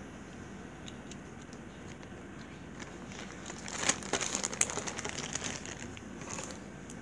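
Hands rummaging through a box of small items: crinkling of packaging with sharp clicks and light knocks for a few seconds from about halfway in, over a faint steady hiss.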